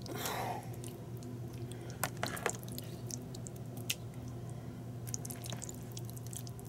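Metal spoon scooping thick, creamy chicken pot pie filling and dropping it into a casserole dish: wet squishing at the start, then a few light clicks of the spoon against the dish. A steady low hum runs underneath.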